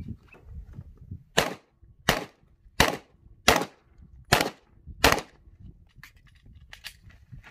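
Glock 34 Gen4 9 mm pistol fired six times in an IDPA stage string, at a steady pace of roughly one shot every 0.7 seconds, each crack followed by a short ring. Two fainter cracks follow near the end.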